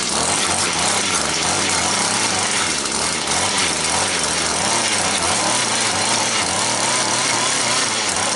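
Mantis rototiller's small engine running steadily at speed, its pitch wavering slightly up and down.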